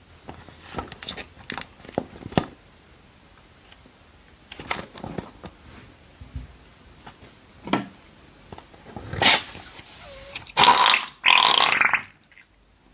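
Slime-filled balloons being squeezed and burst, with wet, squelching pops and rubs. There are several short sounds in the first few seconds, a few more in the middle, and louder, longer squelches near the end.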